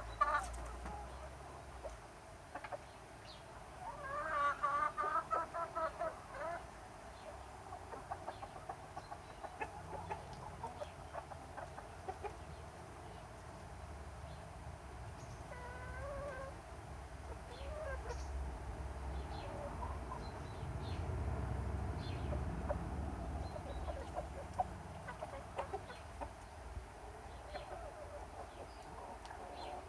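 Chickens clucking, with a run of loud, pulsed calls about four seconds in and scattered short calls throughout. A low rumble rises and fades in the middle.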